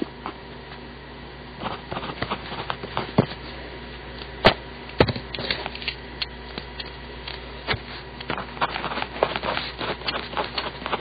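Pentech mechanical pencil with 0.7 mm lead writing on paper: irregular scratching and tapping strokes of the lead, with two sharper clicks about halfway through, over a steady low hum.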